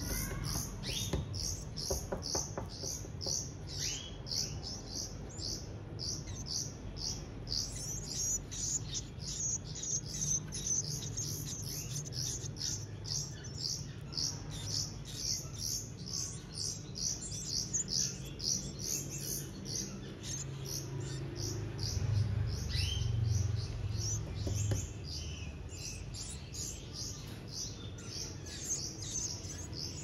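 Nestling songbirds giving a rapid, continuous string of high, thin begging cheeps, several a second, as they are hand-fed.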